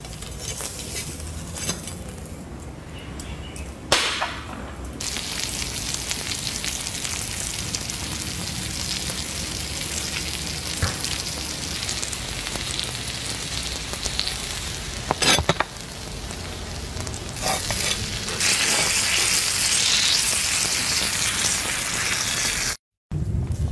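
Steak sizzling as it sears in a hot cast iron pan, a steady frying hiss with a couple of sharp clicks, growing louder about three-quarters of the way through.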